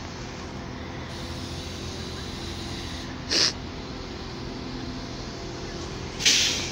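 CAF diesel multiple unit standing with its engine idling, a steady hum. Two short, sharp hisses cut across it, one about three and a half seconds in and a louder one near the end that dies away quickly.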